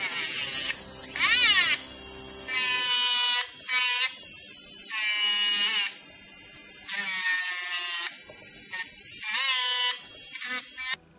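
Rotary tool with a thin cutting disc cutting through silver wire claws: a loud high whine and screech whose pitch dips and rises as the disc bites into the metal, cutting off suddenly near the end.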